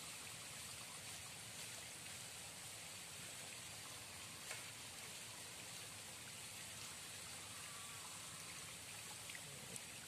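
Steady hiss of river water flowing, with a couple of faint ticks about four and a half seconds in and near the end.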